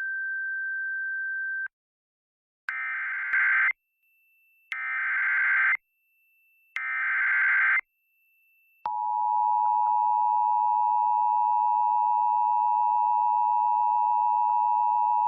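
Emergency Alert System activation: a steady single tone for about two seconds, then three one-second bursts of SAME digital header data. About nine seconds in, the two-tone EAS attention signal starts and holds steady.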